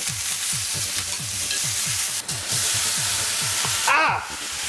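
Bok choy sizzling loudly in a hot frying pan on a gas burner, just tipped in, with a steady hiss of frying.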